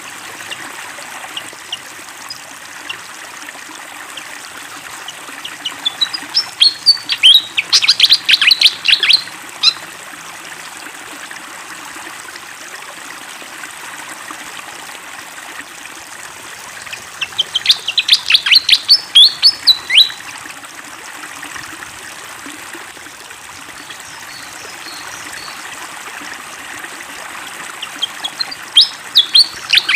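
Malaysian pied fantail singing in three bursts of rapid, sharp, high notes, each lasting a few seconds and coming about ten seconds apart. Steady flowing water runs underneath.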